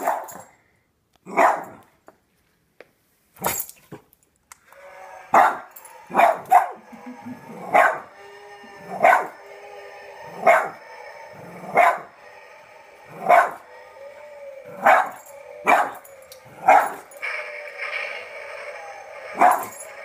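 Boston Terrier barking in single sharp barks, about fifteen of them, spaced a second or so apart. Beneath them, from about five seconds in, the animated zombie figure's steady droning sound effect plays.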